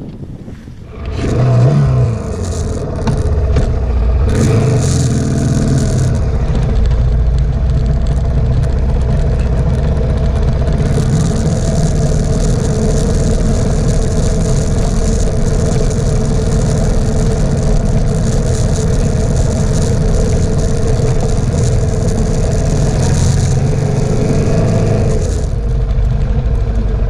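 Suzuki DR650's single-cylinder engine pulling away about a second in, then running steadily on a dirt track, with wind rushing over the bike-mounted camera's microphone. The wind hiss drops away near the end as the bike slows.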